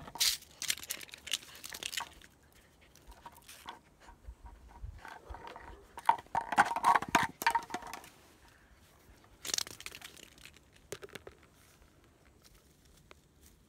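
German Shepherd puppy chewing and biting a plastic bottle, the plastic crackling and crunching in irregular bouts. The bouts are loudest in the first two seconds and again from about six to eight seconds in, with a shorter one near ten seconds.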